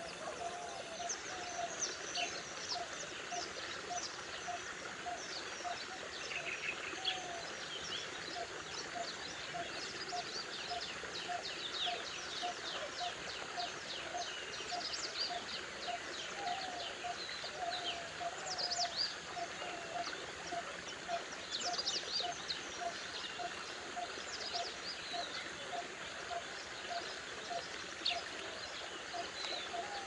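Coppersmith barbet giving its metronomic call: a long, evenly spaced series of short single notes, about three every two seconds, pitched well below the other birds and likened to a coppersmith striking metal with a hammer. Other small birds chirp and twitter in higher, quicker notes throughout.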